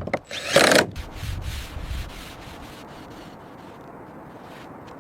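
Wood being sanded or rubbed: one loud scrape about half a second in, then quieter rubbing that fades out at about two seconds.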